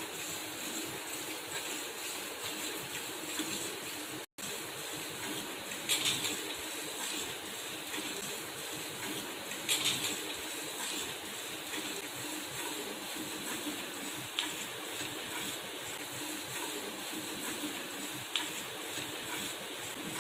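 Milk squirting by hand from a water buffalo's teats into a steel pail: a steady hissing spray with a few louder spurts. The sound cuts out for an instant about four seconds in.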